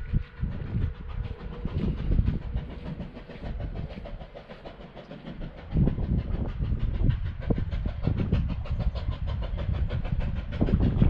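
Narrow-gauge steam locomotive approaching out of sight, its exhaust chuffing in a fast, even rhythm over a low rumble; it grows louder about halfway through.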